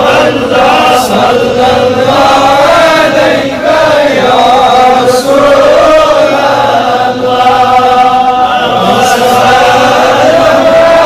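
A solo male voice reciting a naat, an Islamic devotional poem in praise of the Prophet, chanted in long, held melodic lines that bend and turn on each syllable.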